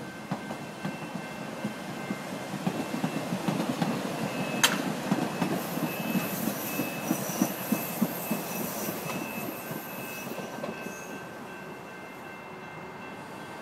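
CTA Yellow Line rapid-transit train running past and moving away, its wheels clacking rhythmically over the rail joints, with one sharp click a little under five seconds in. A high, thin wheel squeal runs through the middle, and the sound fades as the train draws off.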